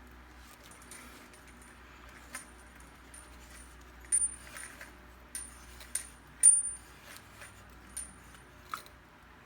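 Stainless steel faucet parts clinking and tapping together as they are handled: a scattered series of sharp metallic clicks with a high ring, the loudest about six and a half seconds in.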